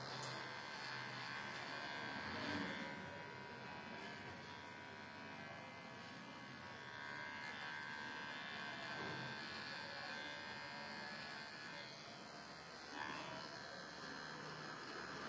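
Cordless electric beard trimmer running with a steady buzz as its blade cuts beard hair on the neck and under the jaw, briefly louder twice.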